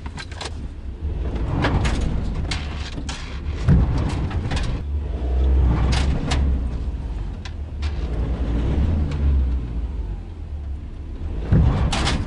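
Ford Transit tipper truck's diesel engine revving up and falling back over and over as the accelerator is pumped, heard from inside the cab, while the stuck truck spins its wheels. Sharp clicks and knocks come through the cab throughout.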